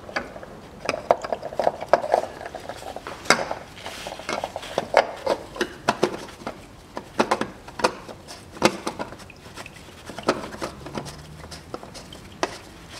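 Oil filter housing cap being screwed onto the engine by hand: irregular small clicks and scrapes as it is threaded and turned.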